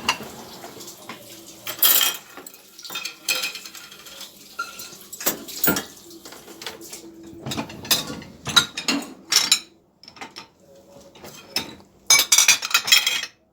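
Dishes and cutlery clinking and knocking as they are handled one after another, in irregular clatters, with a quick dense run of clattering near the end.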